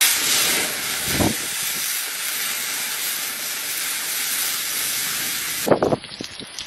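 Hot oil in a wok sizzling with a loud, steady hiss as a whole fish is dropped in to fry, with one dull thump about a second in. The hiss cuts off abruptly near the end, leaving a few soft knocks.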